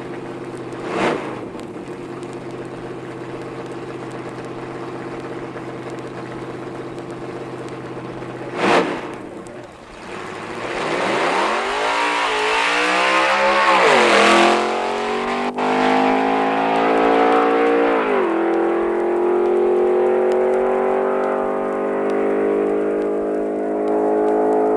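Drag-racing street roadster's engine idling loudly at the starting line, broken by two short sharp bursts, then launching and accelerating hard, its pitch climbing and dropping back twice at gear changes before climbing again.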